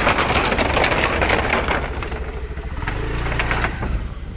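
Small motor scooter engine running as the scooter is ridden off, its low note briefly louder about three seconds in.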